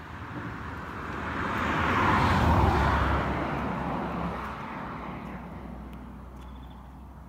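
A single road vehicle passing by on the highway: tyre and engine noise swells to a peak about two and a half seconds in, then fades away over the next few seconds.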